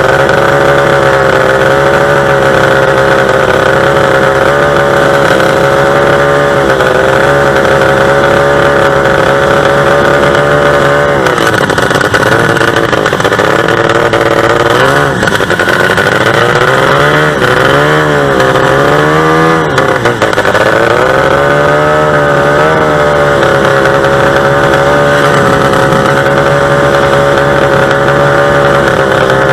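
Two-stroke racing boat engine running loudly at a steady speed. About a third of the way through, its pitch rises and falls several times in quick swings, then it settles back to a steady speed.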